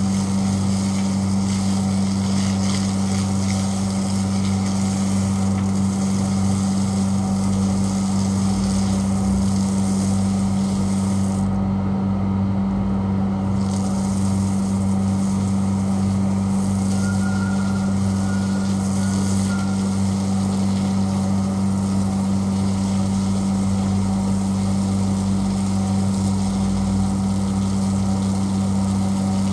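An electric motor running with a steady low hum, under the hiss of water spraying from a hose. The hiss cuts out for a couple of seconds about twelve seconds in, while the hum carries on unchanged.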